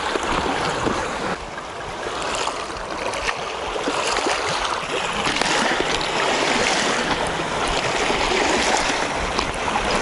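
Steady rushing noise of wind and small waves at the water's edge, with wind buffeting the microphone in uneven low gusts.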